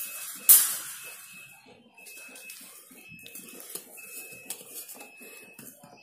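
Wire birdcage clattering sharply about half a second in, the metallic crash dying away over about a second, followed by a few lighter knocks of the wire. A thin high tone repeats about once a second in the background.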